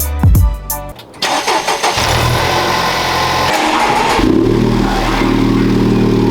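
Music ends about a second in. Then the Honda Civic Type R's turbocharged four-cylinder starts and runs through its AWE Touring exhaust, its note growing fuller and louder about four seconds in.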